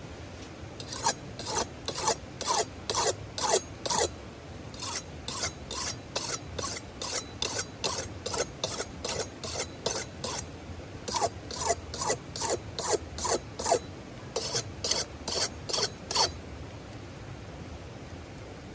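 Rhythmic rasping strokes, about two to three a second, in four runs with short pauses between them, over a steady background hiss.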